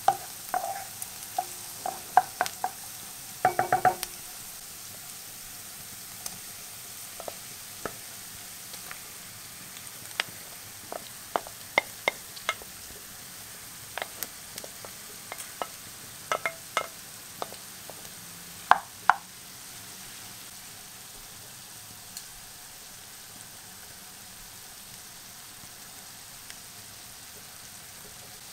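Chopped onions sizzling steadily in oil in a nonstick frying pan, with a wooden spoon stirring and knocking against the pan in scattered clicks.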